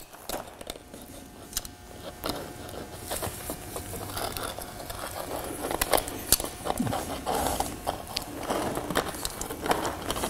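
Caulking gun pressing high-strength concrete adhesive out of its tube onto concrete block: irregular clicks and crackling as the bead is laid.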